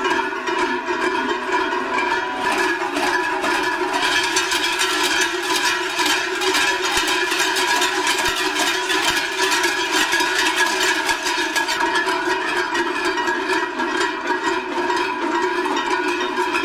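Many large cowbells worn on the belts of costumed figures ringing and clanging together without pause, a dense, steady jangling din.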